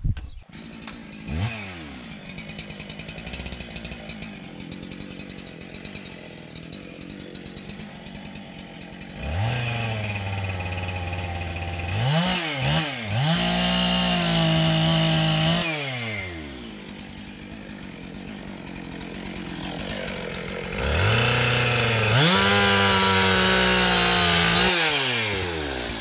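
A small handheld two-stroke power tool engine idling, then revved up to high speed twice and held for several seconds each time, with a couple of quick drops in between, falling back to idle after each run and winding down at the end.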